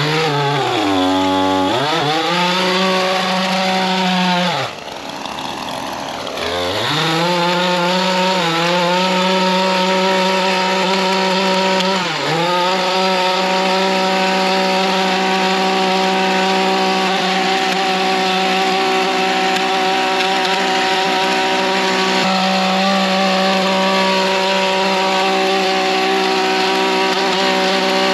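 Two-stroke engine of a gas lawn edger running at high revs. It eases off and recovers about a second in, drops to a low idle around five seconds in and revs back up, then dips briefly once more near twelve seconds before holding a steady high pitch.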